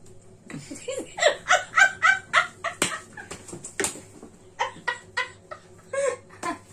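A girl and a woman laughing hard, in rapid high-pitched bursts of about four a second that break into scattered laughs later on, with two sharp smacks near the middle.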